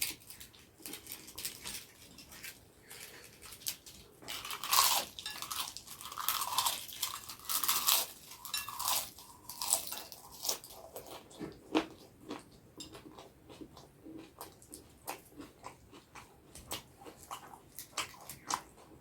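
Close-miked crunching and chewing of crisp Indian snacks. A run of loud crunching bites comes between about four and ten seconds in, then steady lighter chewing clicks.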